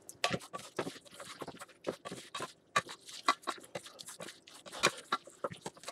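Macaroni being stirred into cheese sauce in a pot: a quick, irregular run of wet squelches and small clicks as the pasta and sauce are mixed.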